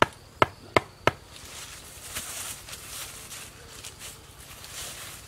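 Four quick chopping strokes of a hand tool into the ground growth, about three a second, then a rustling and scraping of dry leaf litter as the ground is cleared by hand.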